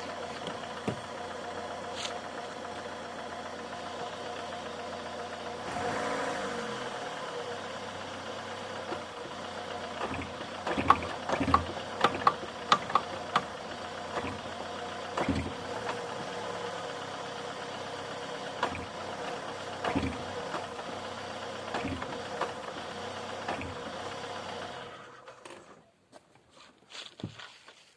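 Opel Vectra A engine idling, with a throttle blip about six seconds in, and sharp knocks from the gearbox area as the gas pedal is pressed and released: a quick run of them a third of the way through, then single knocks every few seconds. The owner cannot tell what causes the knock. The engine stops near the end.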